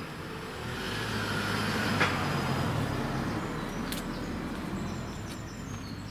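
A car driving past on a road, its tyre and engine noise swelling about a second in and fading away over the next few seconds, with a sharp click at its loudest point about two seconds in.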